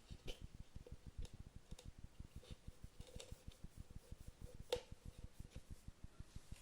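Homemade Mendocino motor running: a faint, fast low pulsing from the spinning levitated rotor, with scattered light clicks and one sharper click nearly five seconds in.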